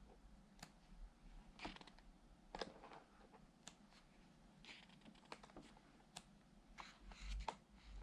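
Paper pages of a paperback book being turned by hand: quiet, short crisp rustles and snaps about once a second.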